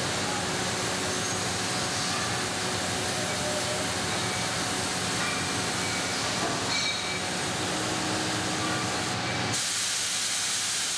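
Lathe machining the neck of an aluminium scuba tank, a steady hissing noise from the cutting, turning brighter and louder about nine and a half seconds in.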